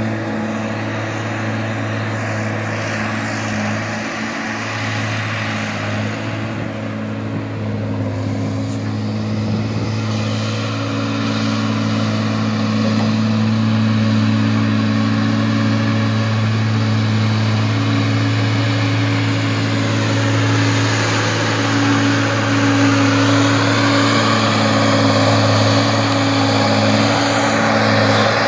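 Tigercat 630D wheeled skidder's diesel engine running steadily as the machine drives around. It grows louder from about halfway through as the skidder comes back towards the listener.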